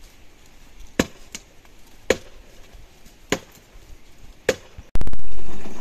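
Chopping: five separate single strokes, slow and irregular, about a second apart. Just before the end comes a sudden, much louder low thump that dies away.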